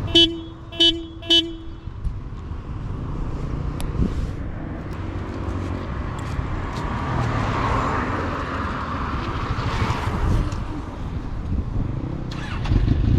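A vehicle horn toots three times in quick succession. Then come the steady rumble and wind rush of riding on the road, with a rushing noise that swells and fades in the middle.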